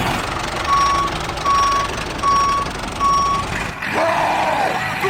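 A vehicle's reversing alarm beeping four times at an even pace over steady background noise. The beeping stops about four seconds in and a shouting voice starts near the end.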